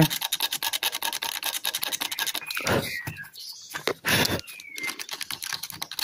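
Hobby knife blade scraping rapidly back and forth over a copper track on a circuit board: a dense run of fine scratches, broken by two short louder scuffs near the middle. The track is being scraped clean so that a break in it can be bridged with solder.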